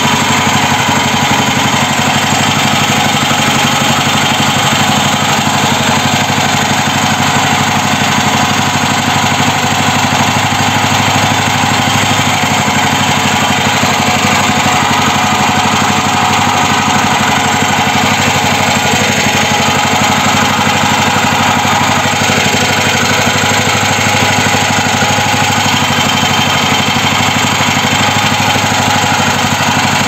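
Petrol engine of a homemade mini tractor idling steadily, driving its belt-driven hydraulic pump.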